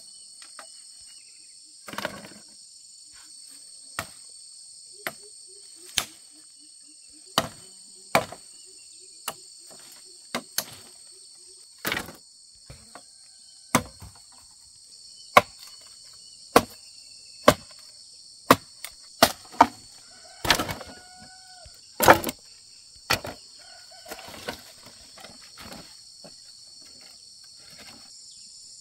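Steady high-pitched drone of insects, with about twenty sharp knocks at irregular intervals that come closer together in the second half.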